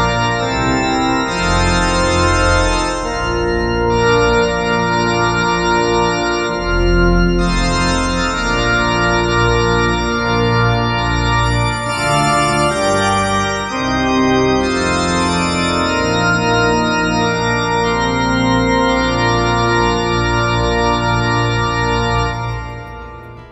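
Organ music playing slow, sustained chords that fade out near the end.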